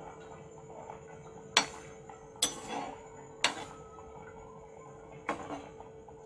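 Mathri dough pieces deep-frying in a metal kadhai with a steady sizzle, while a perforated metal frying spoon stirs them and knocks sharply against the pan about four times.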